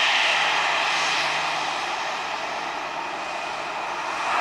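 Airbus A320 jet engines whining steadily at low taxi power as the airliner taxis close by. The sound dips a little midway and swells again near the end.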